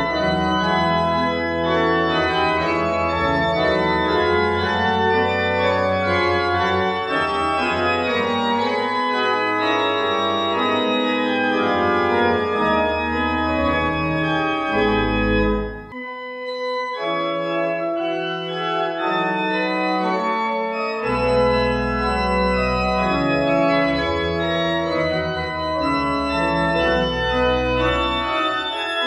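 Church organ playing a closing voluntary: sustained chords over deep pedal bass notes, with a brief break about halfway through before the playing resumes.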